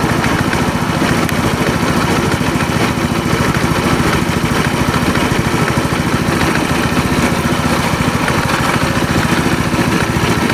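Chinese scooter's engine idling steadily with an even, unbroken beat.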